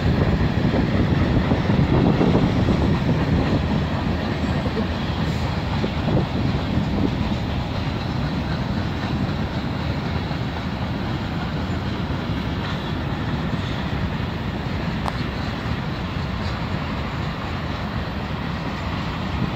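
Mixed freight train of boxcars, tank cars and centerbeam flatcars rolling past, a steady noise of wheels on the rails, a little louder in the first few seconds.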